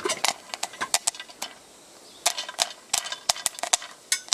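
Popcorn kernels popping in hot oil in a metal mess tin over a spirit burner: sharp, irregular pops, about four or five a second, with a short lull in the middle.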